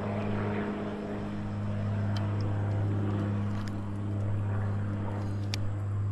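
Steady low engine drone, an even hum that holds one pitch throughout, with a few faint light ticks over it.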